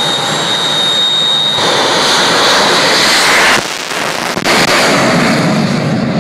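Jet car's turbine engine running loud: a steady high whine stops about a second and a half in as a broad rushing noise swells. The noise dips briefly about two-thirds of the way through.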